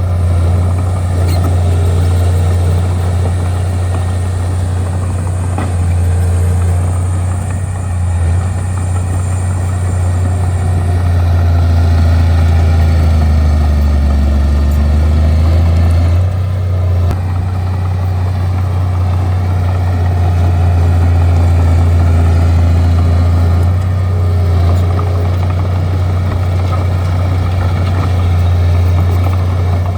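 Bulldozer's diesel engine running steadily with a deep, continuous drone, its load easing briefly a couple of times.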